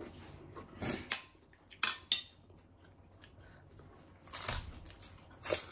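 Metal cutlery clinking and scraping on ceramic plates, with a few sharp clinks, and crunching near the end as a cracker (kerupuk) is bitten.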